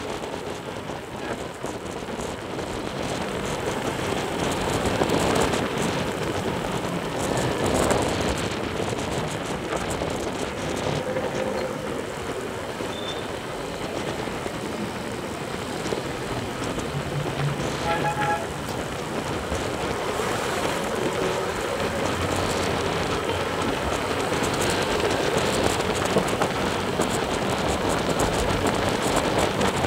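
Steady wind rush and road and traffic noise while riding along a busy multi-lane road. A vehicle horn gives one short toot about eighteen seconds in.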